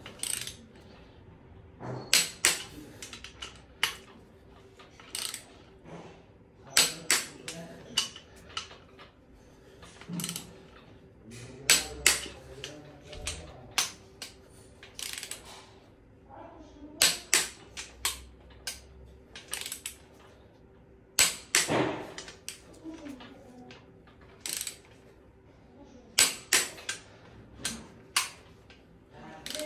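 Click-type torque wrench clicking sharply as each bolt reaches its 140 Nm setting, with ratchet clicks in between, in irregular pairs and small clusters. The clicks signal the first torque stage on the crankshaft bearing bolts of a 4.4 V8 diesel block, before the final 90-degree turn.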